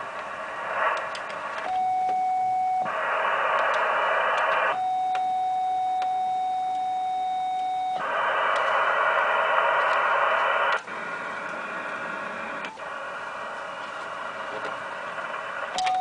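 Shortwave receiver hiss from the speaker of a Yaesu FT-1000MP Mark V HF transceiver. The hiss jumps abruptly between louder and softer stretches. Three times it gives way to a steady mid-pitched beep-like tone lasting one to three seconds, about two seconds in, about five seconds in, and again at the very end.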